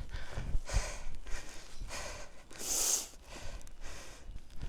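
A cyclist breathing hard to catch his breath after a hard effort, in repeated breaths under a second apart, with a sharp, hissy breath about three seconds in.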